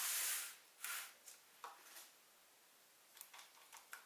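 Kitchen utensils and a bowl being handled: a brief scraping rustle, then a few light clicks and faint ticks.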